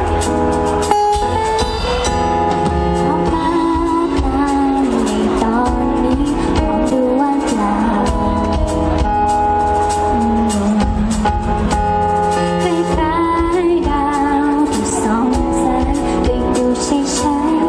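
A woman singing a Thai pop song live into a microphone, backed by a band with acoustic guitar and drums.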